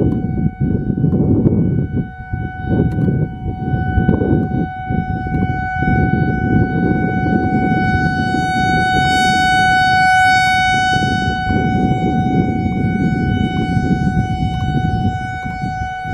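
Whelen WPS-4004 electronic outdoor warning siren, driven by an analog ESC-864 controller, sounding its steady Alert tone: one held pitch that swells louder around the middle as the rotating speaker array turns toward the microphone. Heavy, gusty wind buffets the microphone underneath.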